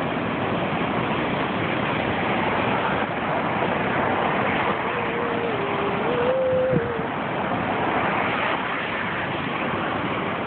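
Ocean surf breaking on a beach, a steady wash of large waves from a hurricane groundswell. A faint, brief tone that steps in pitch sounds about halfway through.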